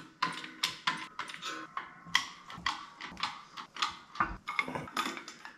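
Ratchet wrench clicking: a long-handled ratchet is worked back and forth, giving a string of sharp metallic ticks, about three or four a second and a little uneven, while a bushing is pressed into an idler arm.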